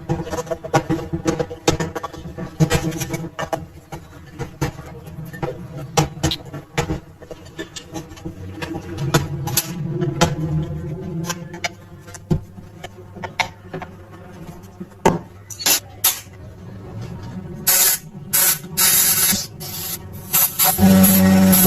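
Workshop work on metal parts: many sharp taps and clinks of hand tools, then several short bursts of hissing spray, and a longer, louder hiss with a steady low hum near the end.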